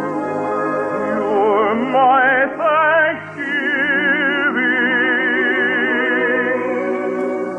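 Operatic singing with wide vibrato over an orchestra, in a 1950s studio radio broadcast. The voice climbs about two seconds in and then holds a long high note.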